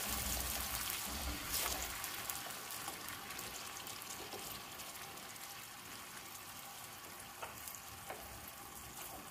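Nokoss paste (blended onion, garlic, hot peppers and ginger) sizzling as it fries in a little oil in a large aluminium pot, stirred with a wooden spoon. The sizzle slowly dies down, with a few light knocks of the spoon.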